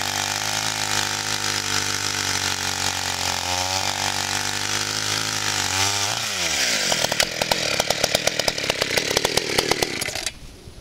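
Partner 350 two-stroke chainsaw (about 35cc) held at steady high revs, then the throttle is let off and the pitch falls sharply to a rough, uneven idle, with a brief sudden drop in loudness near the end. The owner says the saw doesn't like the cold weather.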